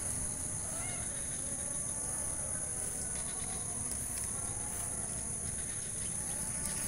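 Steady high-pitched insect chorus, a continuous shrill drone, with a low rumble underneath and a few faint short chirps.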